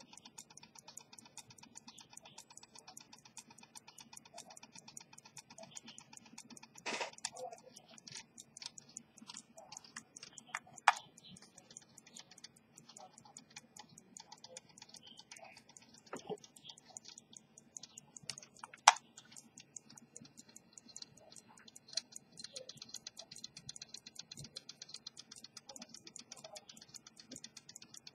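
Late-18th-century Swiss silver pocket watch ticking, its movement giving a fast, steady run of light ticks. A few louder single clicks stand out here and there.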